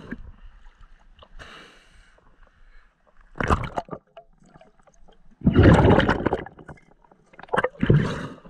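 Lake water splashing and gurgling around a diver moving between the surface and underwater, in three bursts: a short one about three and a half seconds in, the longest and loudest about two seconds later, and a short one near the end.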